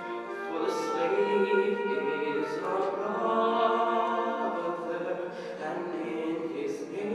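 Live singing in a church, slow with long held notes, picked up from the pews.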